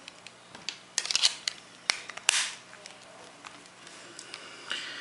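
Plastic back cover of a Samsung Corby mobile phone being pressed and snapped onto the handset: a quick run of sharp plastic clicks, the sharpest about two seconds in, with light handling noise around them.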